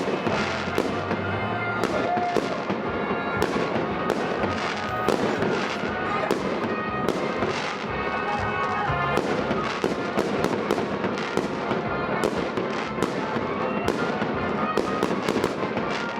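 Festive fireworks display: a dense, continuous run of sharp bangs and crackles, several a second, with no pause.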